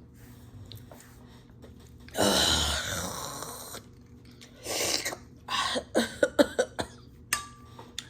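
A woman's harsh, breathy exhale and coughing right after downing a shot of tequila. A long rasping exhale comes about two seconds in, then a shorter one and a quick run of short coughs and gasps.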